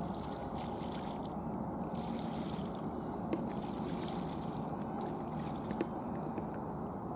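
Steady low outdoor noise of wind and water on a marsh, with a couple of faint clicks about three and a half and six seconds in.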